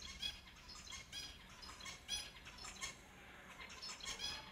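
Finches calling: a quick run of short, sharp chirps, several a second, overlapping one another.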